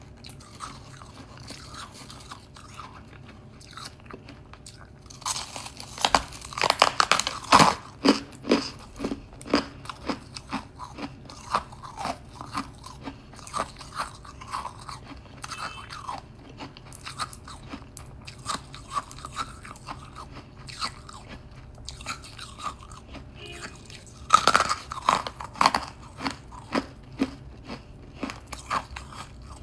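A person biting and chewing hard frozen frost. Loud crisp crunches come about six seconds in and again near the end, with steady rhythmic crunching chews between them.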